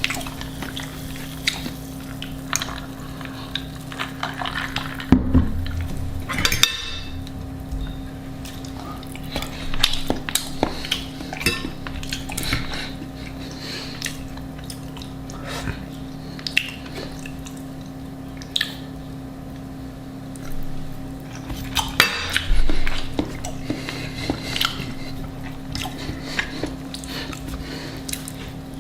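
Utensils clinking and scraping against dishes in scattered, irregular knocks over a steady low hum, with louder clattering about five to seven seconds in and again past twenty seconds.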